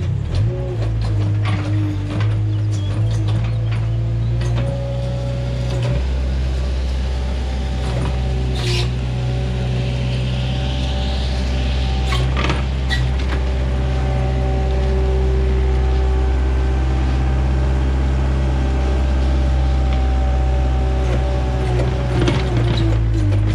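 Gehl compact wheel loader's diesel engine running steadily under load, with higher mechanical tones that shift in pitch now and then. Occasional clanks and knocks from the front-mounted feed-pushing blade and its frame as it scrapes feed along the concrete.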